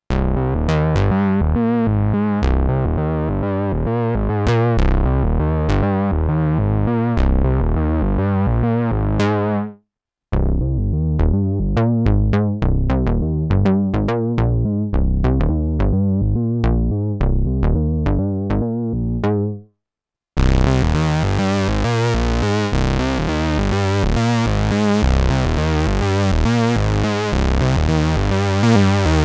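Sequential Pro 3 analog synthesizer playing deep, gritty bass lines as three patches in turn, each a repeating run of short notes about ten seconds long, with a brief break between them. The second patch sounds duller and muffled, and the third is much brighter and buzzier.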